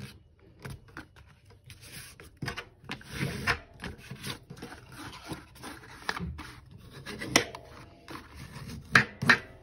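Heavy mixed-media paper being folded and its creases rubbed down, a bone folder scraping along the fold in short strokes, with a few sharp clicks near the end.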